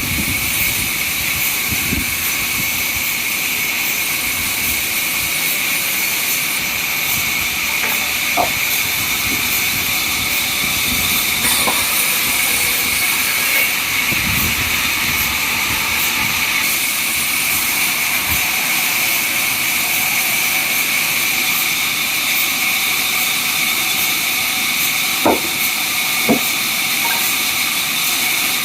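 Sawmill machinery running steadily with a high, hissing whine. Two sharp knocks come near the end.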